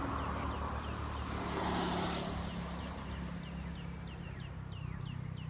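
Outdoor ambience: a bird calling a long series of short falling chirps, about three a second, over a low steady hum like distant traffic, with a brief hiss about two seconds in.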